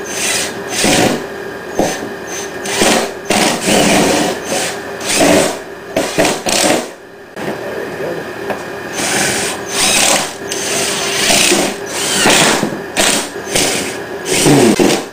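Cordless drill-driver running in short bursts, its motor whine starting and stopping over and over as it drives screws.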